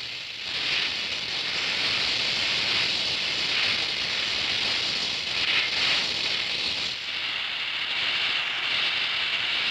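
Oxy-acetylene welding torch flame hissing steadily as it melts the weld puddle in thick steel plate.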